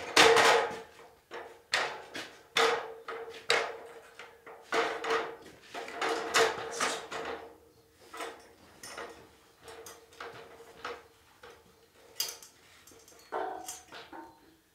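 Aluminium ladder clattering and knocking as it is handled, stood against a steel beam and climbed, with a steady metallic ring under the knocks. The knocks come quickly for the first seven seconds or so, then more sparsely.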